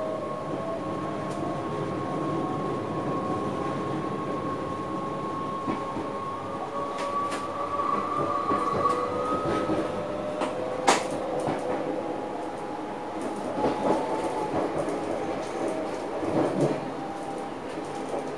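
Cab of an NS SLT electric multiple unit under way: the electric traction motors whine in a few steady tones that rise slowly in pitch as the train picks up speed, over a running rumble. Wheels click and knock over rail joints and points, with the sharpest click about eleven seconds in and more near the end.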